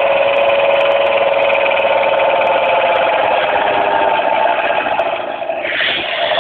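Bucket milking machine's vacuum pump and newly fitted electric motor running loudly and steadily on a test run. The sound dips briefly near the end and then comes back.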